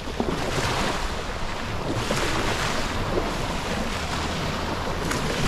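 Surf washing onto a beach in repeated swells, with wind buffeting the microphone in a constant low rumble.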